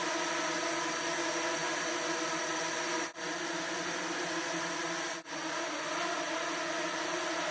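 Swarm of nano quadrotors flying in formation: a steady, dense buzz of many small rotors, cutting out briefly twice, about three and five seconds in.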